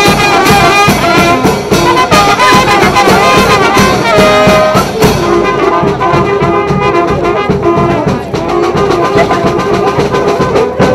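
Brass band music playing continuously.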